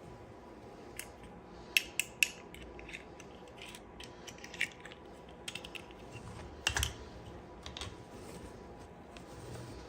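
Irregular clicks and taps of small plastic toy pieces and packaging being handled. Three quick sharp clicks come about two seconds in, and a louder clatter near the end.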